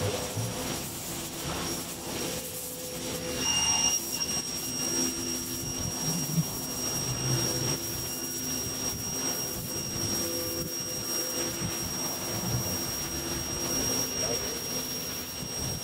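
Ryobi electric pressure washer running, its motor and pump humming steadily under the hiss of the water jet spraying the pavement.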